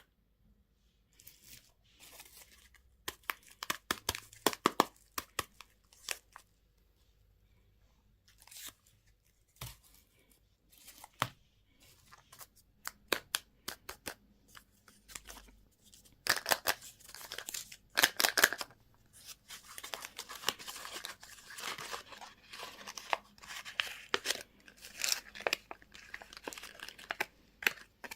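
Candy and toy packaging being torn open and crinkled by hand: irregular bursts of tearing and crackling mixed with sharp clicks, busier in the second half.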